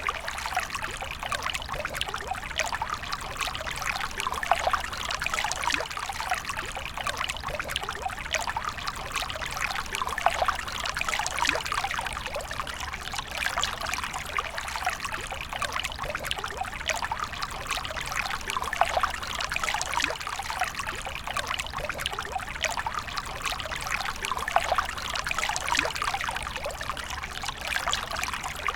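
Stream of water pouring and trickling steadily, a dense patter of fine splashes.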